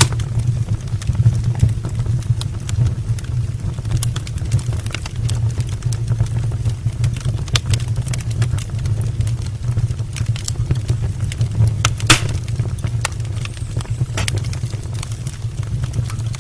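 Wood fire burning in an open brick fireplace: a steady low rumble of the flames with scattered crackles and pops from the burning logs, one sharper pop about twelve seconds in.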